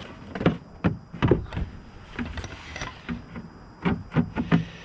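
Irregular knocks and clicks of a plastic replacement taillight assembly being fed through and pushed into place in the car body, about ten of them at uneven spacing.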